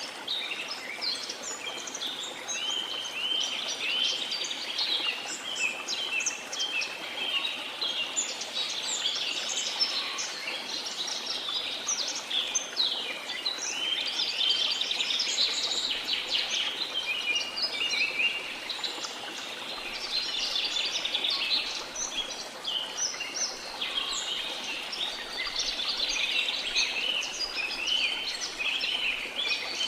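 Many birds chirping and singing at once, dense overlapping calls and trills, over the steady rush of a waterfall.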